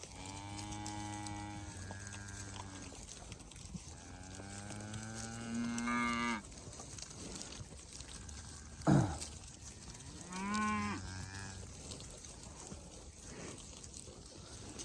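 Cows mooing: three long, drawn-out moos, the second rising in pitch at its end, and a short, sharp, louder call about nine seconds in.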